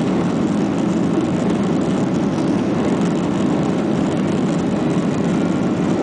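Steady roar of a Boeing 737-800's CFM56 turbofan engines and airflow heard inside the passenger cabin, a constant low rumble with no change in pitch or level.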